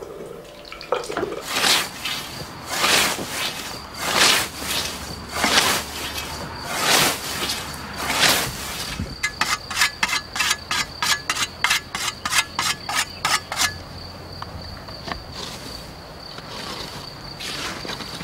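A scythe swishing through long grass in about seven slow strokes. Then a whetstone is run quickly up and down the scythe blade, about five ringing strokes a second for some four seconds, to sharpen it. Crickets chirr steadily throughout.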